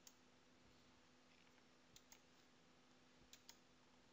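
Near silence with faint computer mouse clicks in close pairs, about two seconds in and again about three and a half seconds in, over a faint steady hum.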